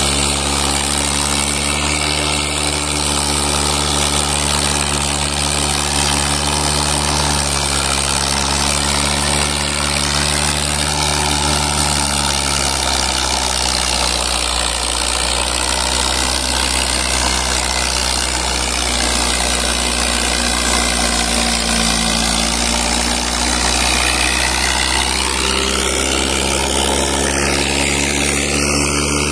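Mahindra tractor's diesel engine running steadily under load as it hauls a heavily loaded sugarcane trailer over soft ploughed soil. Its pitch drops about halfway through and rises again near the end.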